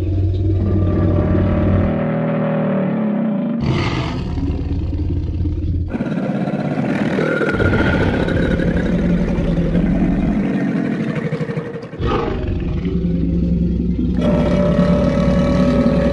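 Creature roar sound effects of a monster or dinosaur kind, several long, deep roars played back to back, each new one starting abruptly, with a heavy low rumble under them.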